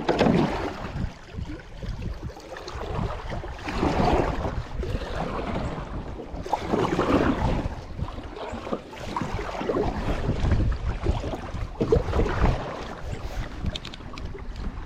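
Kayak paddle strokes splashing and dripping in a slow, uneven rhythm, a swell every three seconds or so, over a low rumble of wind on the microphone.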